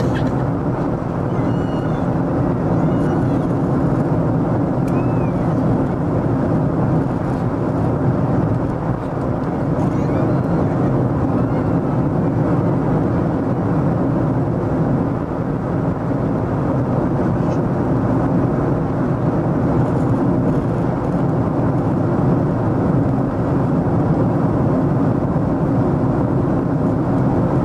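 Steady cabin noise of a Boeing 747SP in flight: a constant jet-engine hum and airflow rush heard from inside the cabin, even in level with no change.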